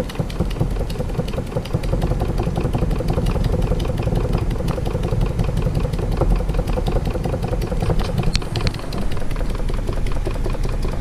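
Meccano toy steam engine running fast on steam from its methylated-spirit-fired boiler: a rapid, even chuffing clatter that grows louder about two seconds in as it picks up speed.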